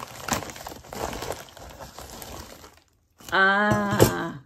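Plastic mailing bag crinkling and rustling as it is handled. It breaks off for a moment of silence just before three seconds in, then a drawn-out, loud vocal "ah" comes near the end.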